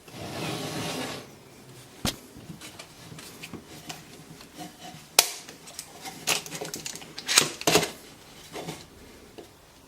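A bar clamp with wooden extensions being handled: a brief rubbing sound at the start, then a string of scattered clicks and knocks of wood and metal, the sharpest about five seconds in and two close together between seven and eight seconds.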